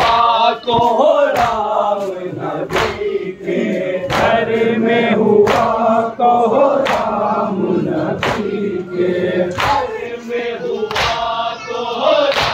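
A crowd of men chanting a nauha lament in unison, with sharp collective chest-beating (matam) slaps landing about every one and a half seconds.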